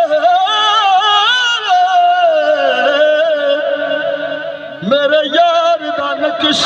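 Male qawwali singer holding long, drawn-out notes with ornamented turns, over harmonium accompaniment. The held line sinks lower in the middle, and a new sung phrase begins about five seconds in.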